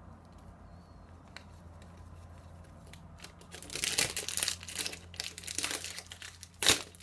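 Thin plastic film wrapping a phone box crinkling and tearing as it is picked at and pulled off. The crackling starts about three and a half seconds in, with one sharp loud crackle near the end.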